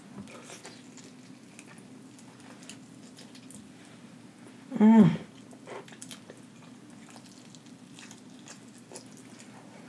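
Close-up biting and chewing of sauce-covered rotisserie chicken: faint wet mouth clicks and smacks throughout, with a short hummed "mm" falling in pitch about five seconds in.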